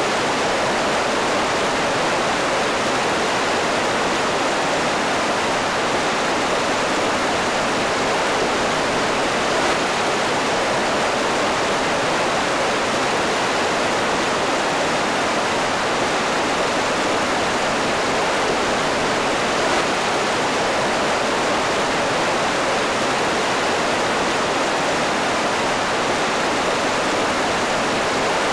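Big Thompson River rapids, water rushing steadily over boulders.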